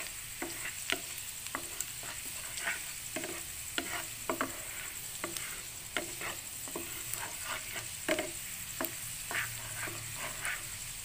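Chopped garlic sizzling in melted butter in a nonstick frying pan, with irregular clicks and taps as a wooden spatula stirs it.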